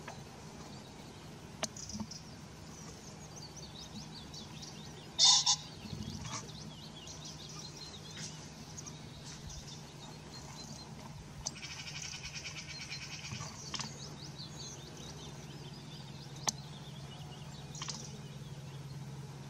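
Small birds singing and chirping throughout, with one loud, harsh two-note crow from a cock common pheasant about five seconds in. A steady low hum sits underneath.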